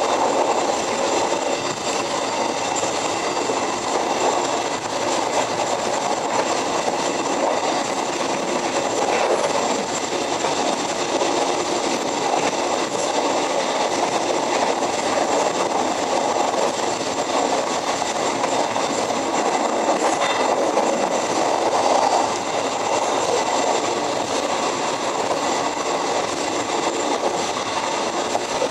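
Passenger train running at speed, heard from inside the last carriage: a steady rumble of steel wheels on rail with a few faint clacks over rail joints.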